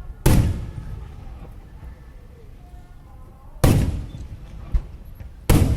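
Aerial firework shells bursting: three loud bangs a few seconds apart, each trailing off in a rumbling echo, with a softer thump between the last two.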